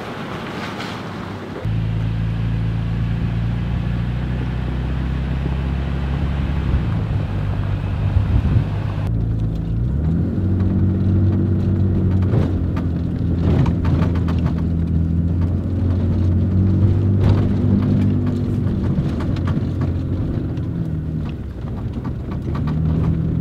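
Pickup truck driving: a steady engine drone and road rumble that rises in pitch about ten seconds in, with scattered knocks and rattles.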